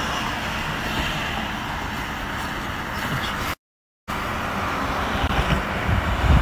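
Steady road and wind noise of a car driving along. The sound cuts out completely for about half a second a little past halfway.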